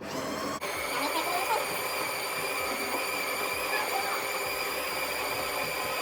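Built-in conical burr grinder of a Ninja Luxe Café espresso machine grinding coffee beans, a steady motor whine that starts abruptly and keeps running.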